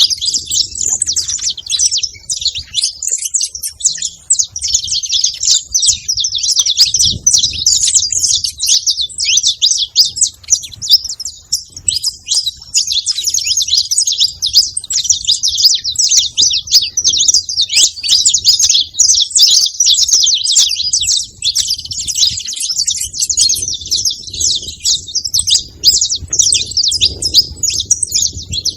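Saffron finch (canário-da-terra) chirping and singing, a dense, unbroken stream of rapid high notes.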